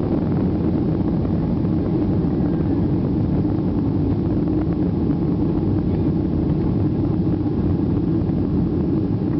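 Jet airliner's engines at takeoff power, heard from inside the passenger cabin: a loud, steady, low rushing noise through the takeoff run and liftoff.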